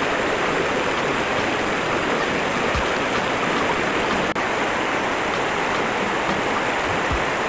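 River water rushing over boulders and spilling over a small weir: a steady, even rush.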